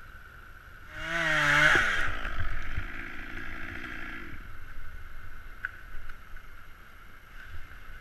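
Chainsaw revving hard about a second in, its pitch wavering and then dropping, then running steadier for a couple of seconds before it stops.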